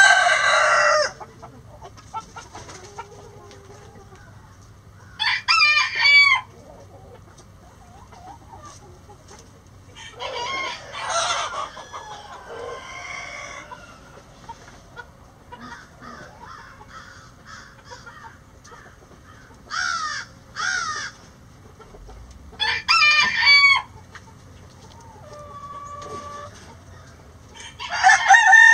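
Roosters crowing several times, a few seconds apart, with hens clucking softly between the crows.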